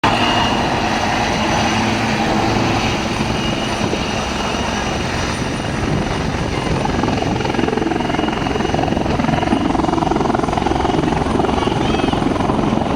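Helicopter flying, its rotor and engine making a loud, steady, continuous noise.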